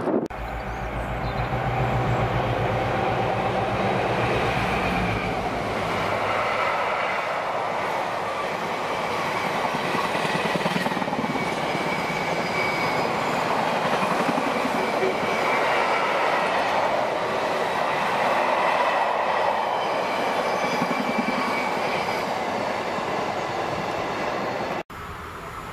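A Class 60 diesel locomotive's engine drones low for the first few seconds as it hauls a train of loaded bogie oil tank wagons past. The wagons then roll by steadily with wheels clattering over the rail joints and a thin squeal at times. The sound cuts off abruptly near the end.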